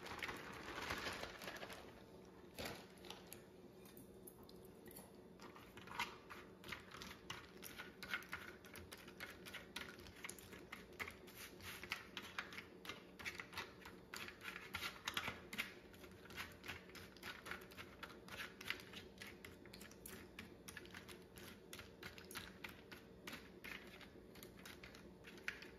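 Coated mini saltine crackers tipped out of a plastic zip-top bag onto a parchment-lined metal sheet pan, then a long run of light, irregular clicks and ticks as two metal forks spread the crackers out, the tines tapping crackers and pan. A faint steady hum sits underneath.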